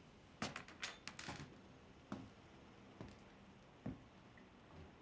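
Faint quick clicks and knocks, then slow footsteps about a second apart.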